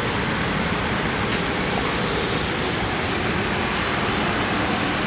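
Steady city street noise: a continuous even hiss of road traffic with no distinct events.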